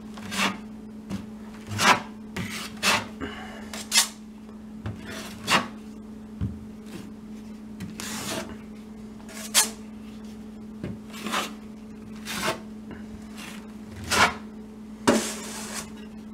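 Drywall knife scraping through joint compound: about a dozen short scrapes at uneven intervals, over a steady low hum.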